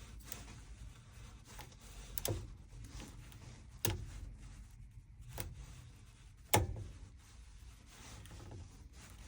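Lock pick and tension wrench working the pins of an antique Kwikset deadbolt during single-pin picking: four sharp metallic clicks a second or so apart over a faint low hum.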